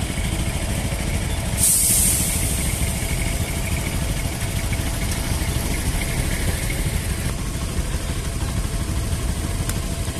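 Several motorcycle engines idling steadily together, a low, evenly pulsing rumble. A brief loud hiss comes about one and a half seconds in.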